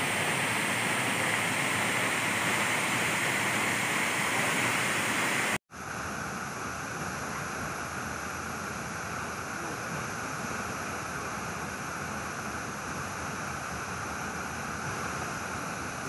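Waterfall's steady rush of falling water. It drops out for a split second about five and a half seconds in, then comes back slightly quieter and duller.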